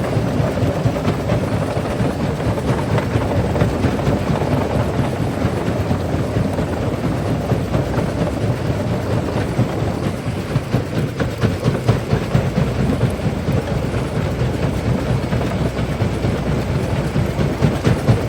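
Large quarry jaw crusher running under load, a heavy continuous rumble with rock cracking and knocking as the stone is broken. From about ten seconds in the noise pulses in an even beat.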